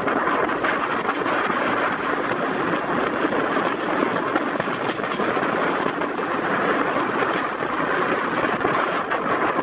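Steady drone of a motorized outrigger boat's engine under way, mixed with the rush of water and wind.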